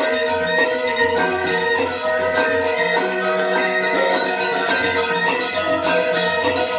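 Gamelan music: metallophones ring out a melody of held notes over drums, with quick, even strokes of high percussion.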